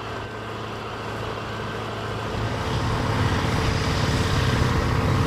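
John Deere 8850's 15.6-litre V8 diesel engine working under load as it pulls a 10-furrow plough, growing gradually louder as the tractor comes closer.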